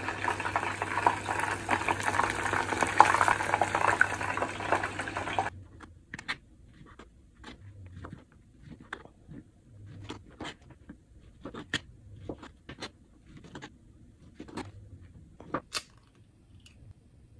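Hot oil sizzling and crackling as battered chicken deep-fries, cutting off suddenly about five seconds in. Then come scattered sharp clicks and knocks: a knife slicing sausages on a plastic cutting board, and an egg cracked open near the end.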